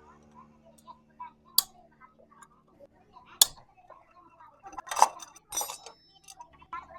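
Bike drive chain making the noise it has a problem with: faint ticking with sharp metallic clicks, the loudest about a second and a half in, at three and a half seconds, and twice near five seconds.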